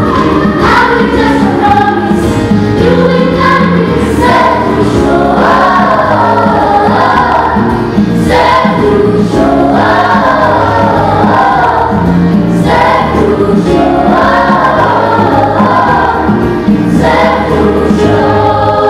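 Children's choir singing an upbeat gospel song in unison, over a backing of low bass notes and a regular beat. The backing stops right at the end.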